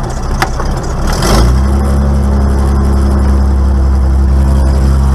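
Light aircraft's piston engine heard from inside the cockpit, running with a steady low drone that grows louder about a second and a half in, just after a sharp click. This is the engine noise being checked after the spider was replaced.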